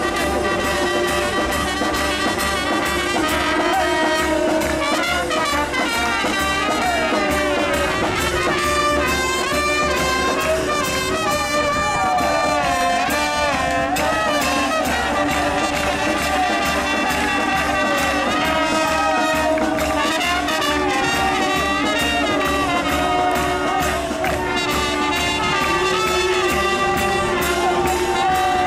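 Brass band playing a tune with trumpets and trombones over a steady beat.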